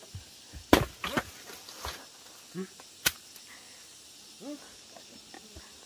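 Several sharp knocks or thumps, a quick cluster in the first two seconds and a single loud crack about three seconds in, with a few short voice sounds between them. A steady high insect drone runs behind.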